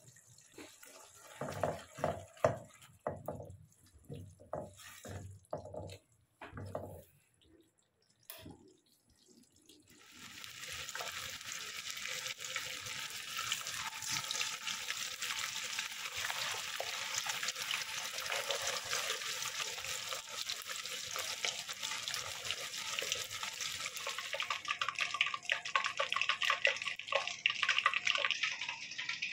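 A silicone spatula stirring and scraping sauce in a nonstick pan, in short separate strokes. About ten seconds in this gives way to marinated chicken wings deep-frying in hot oil: a steady, dense sizzle that grows a little stronger near the end.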